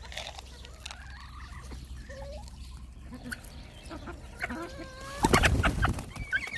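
Hens giving soft, scattered clucks while pecking at wheat, then a sudden loud flurry of wing-flapping and squawking about five seconds in as a hen is grabbed.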